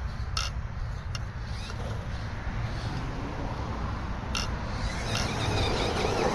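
An FTX Ravine RC rock crawler running its electric motor and drivetrain as it drives over dirt and up a steep earth bank, with a few sharp clicks and a steady low rumble. It grows louder near the end as it climbs toward the microphone.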